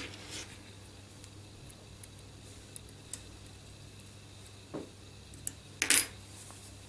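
Faint, scattered metallic clicks and clinks of a small 2 mm Allen key working grub screws into a plastic support, with a sharper double clink about six seconds in.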